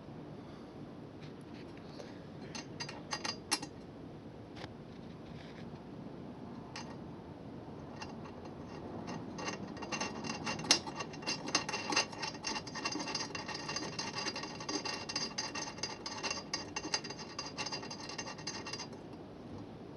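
Hand ratchet wrench clicking as bolts are run in. There are a few separate metal clicks and clinks early, then a long stretch of rapid, ringing ratchet clicks from about halfway through that stops shortly before the end.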